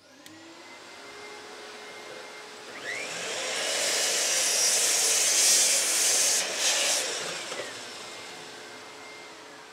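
Bosch mitre saw starting up with a rising motor whine, its blade cutting through a 2-inch-thick maple board from about three to seven seconds in, then the motor winding down.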